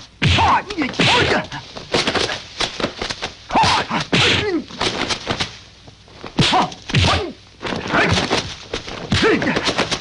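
Kung fu fight sound effects: a rapid run of dubbed punch and kick whacks and thuds, mixed with the fighters' short shouts and grunts.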